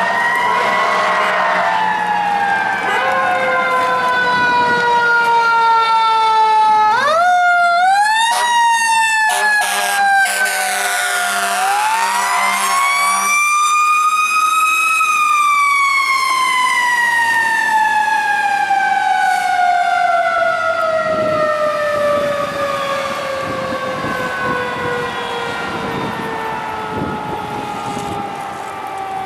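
Federal Q mechanical fire-truck siren winding down, spun back up in quick bursts about seven to eight seconds in, with steady air-horn blasts in the middle. It then winds up to a peak and coasts down in one long, slow falling wail.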